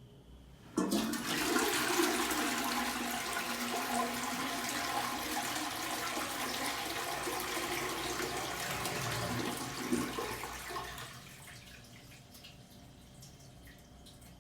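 Toilet flushing: a sudden rush of water starts a little under a second in, runs strongly for about nine seconds, then tails off about eleven seconds in.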